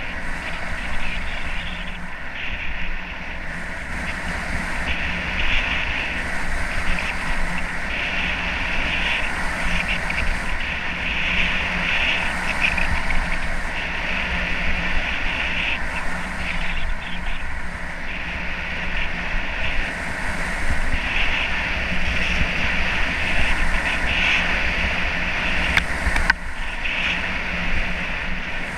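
Wind buffeting a helmet-mounted camera during a fast downhill run on a groomed slope, with the hiss and scrape of edges on packed snow swelling and fading with each turn. A single sharp knock comes near the end.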